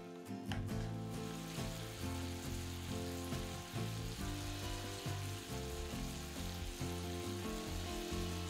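Chicken-thigh and leek yakitori skewers sizzling in a frying pan in a teriyaki glaze, the sauce bubbling steadily, with background music playing.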